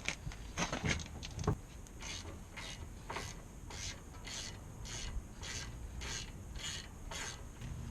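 Ratchet wrench turning a 17 mm nut on the front suspension, a run of ratcheting strokes about two a second.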